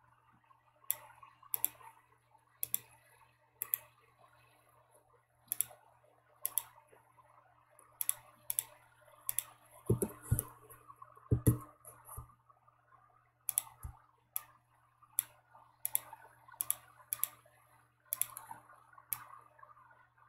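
Irregular clicks of a computer mouse and keyboard, with a cluster of louder, deeper knocks about ten to twelve seconds in, over a faint steady low hum.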